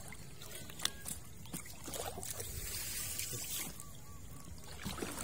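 Water trickling and splashing, with a sharp knock about a second in.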